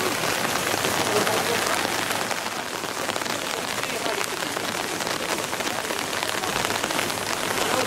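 Steady rain falling on wet asphalt: an even hiss with many small taps of drops.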